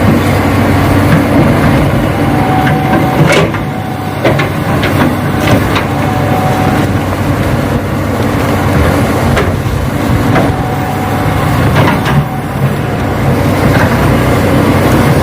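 Radio-controlled Hitachi model excavator working: a steady low engine-like hum, with scattered clicks and scrapes.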